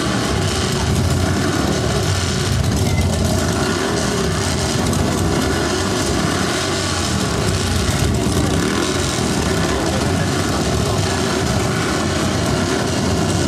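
Recorded motorcycle engine sound effect played over stage speakers, running steadily with its pitch wavering up and down a little.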